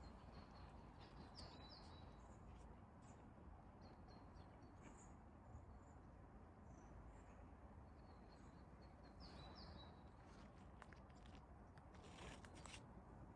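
Faint outdoor bird song: a short phrase of several high notes ending in a falling note, sung twice about eight seconds apart, with scattered brief chirps over a steady low background rumble. A few soft clicks, and a brief rustle near the end.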